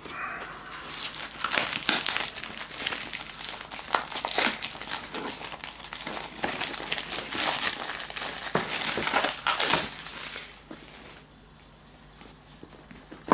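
Plastic shrink-wrap being torn and peeled off a cardboard phone box, crinkling and crackling with sharp rips for about ten seconds, then dying away near the end.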